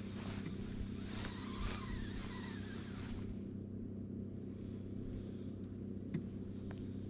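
Boat motor running with a steady low hum, with a couple of faint ticks near the end.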